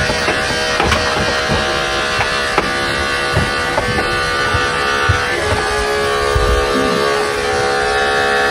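Cordless electric dog clipper running with a steady buzz as its blade shears through a poodle's curly coat, with small irregular ticks as it is worked against the fur.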